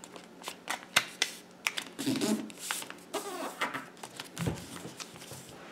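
Sheet of printer paper being folded and creased by hand: an irregular string of small crinkles, taps and rustles.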